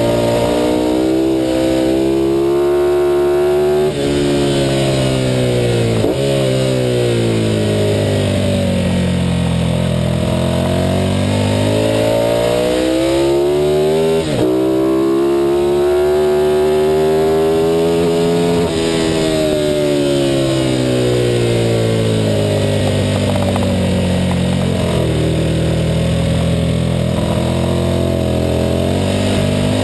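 Ducati 916's V-twin engine at racing pace, recorded on board. The pitch climbs under acceleration and breaks sharply at gear changes, about four times, then falls away in long slides as the rider rolls off for corners, over and over.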